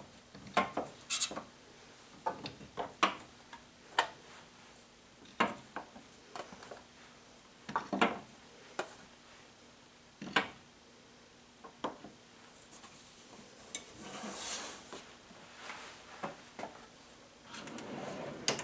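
Screwdrivers and a nut driver being set down one at a time into a magnetic holder in a tool chest drawer: scattered light clicks and clinks of tool shafts and handles, with a short rubbing sound about fourteen seconds in. Near the end the drawer starts to roll shut on its slides.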